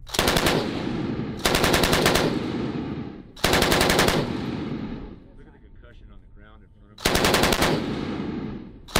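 Belt-fed machine gun firing four short bursts of automatic fire, each about half a second of rapid shots with a ringing tail. The bursts come near the start, at about a second and a half, at about three and a half seconds, and at about seven seconds, with a longer pause before the last.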